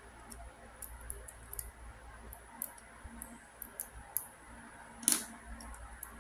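Small plastic clicks and ticks from LEGO Technic pieces being handled and slid apart as an axle is pushed through the puzzle, with one louder click about five seconds in.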